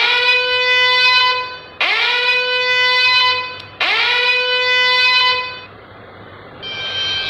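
Comedic meme sound effect: three long, loud, horn-like notes, each bending up in pitch at the start and then held about a second and a half. A new higher-pitched sound starts near the end.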